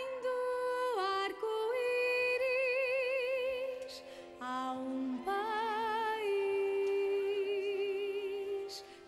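A woman singing a slow musical-theatre song with musical backing, holding long notes with a wide vibrato. There is a short break about four seconds in.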